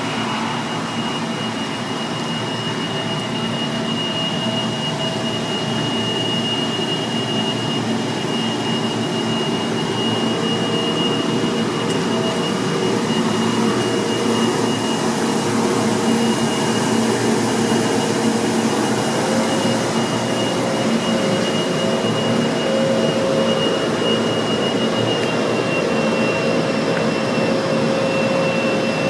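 Car wash equipment running: a loud, steady mechanical drone with a high whine held at one pitch, slowly getting a little louder.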